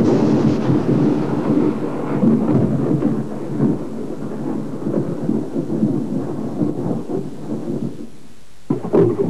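Thunder sound effect: a continuous low, rolling rumble that fades away about eight seconds in. A new, louder low rumble starts just before the end.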